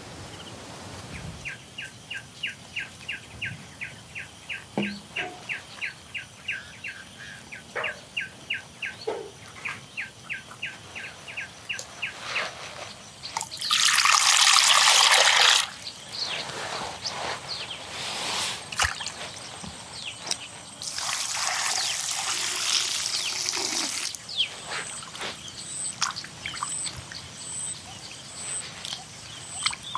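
Water poured in two bursts of a few seconds each, with small splashes in between. A repeated high chirp, about three a second, runs through the first third.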